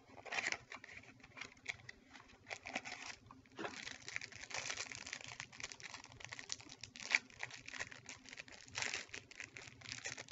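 Plastic trading-card pack wrapper being torn open and crinkled in the hands: a steady run of short crackles and rustles, busiest around the middle and near the end.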